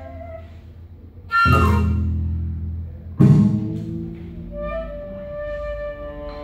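Small acoustic ensemble of flute, double bass, violin and hand drums playing live. A held note fades out, two loud deep hits land about one and a half and three seconds in, then long, steady bowed string notes sound near the end.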